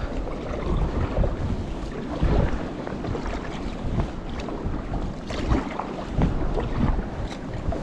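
Wind buffeting the microphone, gusting unevenly, with small sea waves slapping against a kayak's hull in short knocks.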